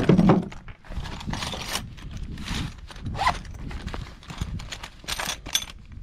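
Handling of a zippered cloth tool pouch holding a set of metal sockets: rustling fabric, a zipper, and sockets clinking together in irregular knocks. A heavier thump comes right at the start.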